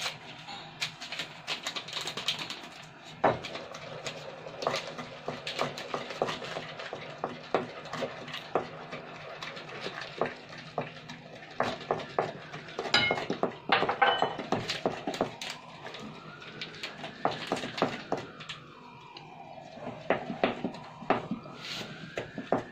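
Wooden spoon scraping and knocking against a bowl while flour is stirred into cake batter, giving irregular clicks and scrapes. In the second half a faint tone slowly rises and falls, twice.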